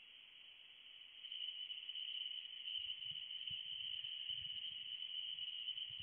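Steady high-pitched insect trill that grows louder about a second in, with faint low thuds from about three seconds in.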